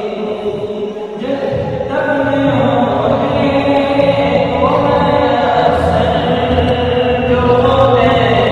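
Background Islamic devotional vocal music, a naat, with chanting choir-like voices. A low sustained hum comes in just over a second in.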